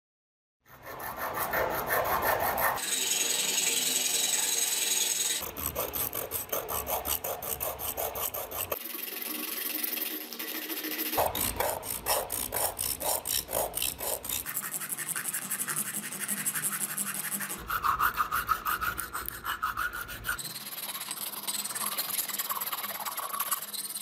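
Wooden handle of an antique meat grinder being sanded by hand with sandpaper: repeated back-and-forth rasping strokes of abrasive on wood. The sound comes in several short stretches that change abruptly, starting about a second in.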